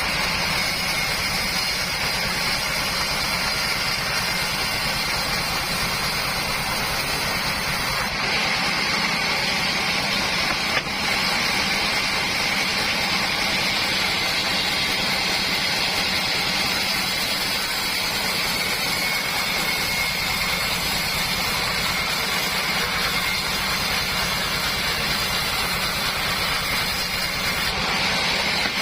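Homemade sawmill running steadily as it saws mahogany into boards: a constant machine drone with a high, steady whine, and a single short knock about eleven seconds in.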